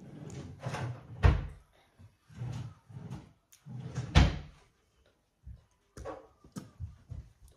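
A string of irregular knocks and thumps, with two louder thuds about a second in and about four seconds in.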